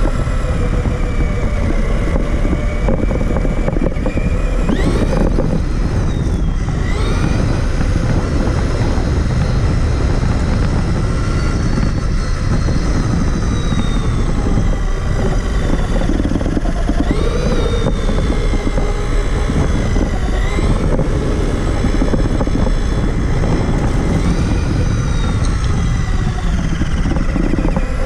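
Traxxas Summit RC truck's electric motor and drivetrain whining, the pitch rising and falling again and again with throttle, over a steady low rumble from the truck's chassis as heard by the onboard camera.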